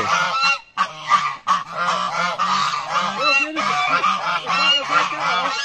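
A flock of domestic geese, African geese among them, honking loudly, many calls overlapping one another, with a short lull about a second in.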